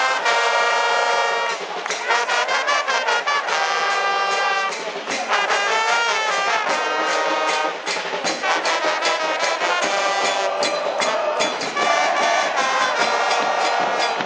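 A football supporters' band of trumpets and trombones playing the held notes of a terrace chant over steady, rapid bass-drum beats.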